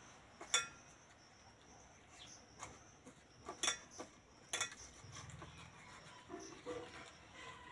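Faint sounds of a hand working gram-flour (besan) batter with water in a steel bowl, with several sharp clicks spread through.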